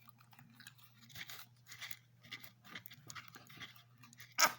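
A paint-and-slime mixture being stirred and squished in a plastic cup: a run of short, irregular wet scrapes and squelches, with one louder stroke near the end.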